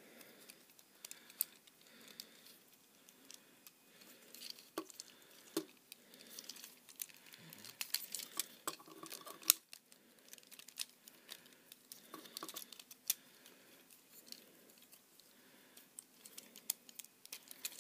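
Plastic parts of a Transformers Ratchet action figure clicking and rattling as it is handled and a loose piece is fitted back on. The clicks come irregularly, with a few sharper snaps in the middle.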